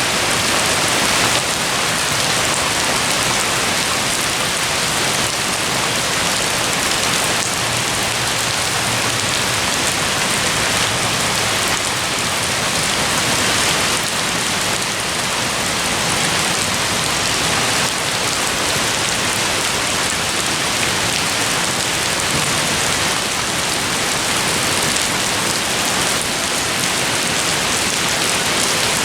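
Steady rain falling, an even, unbroken hiss of drops on the surroundings.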